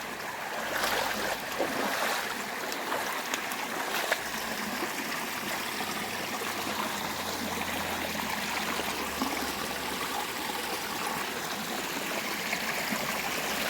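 Stream water running and trickling steadily, with a few brief knocks in the first four seconds.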